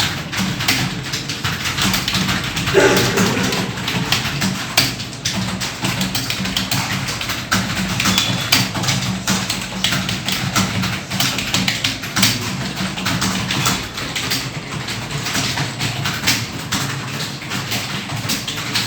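Rapid, irregular clicking of computer keyboard keys during continuous typing. A short voice-like sound stands out about three seconds in, over a steady low hum.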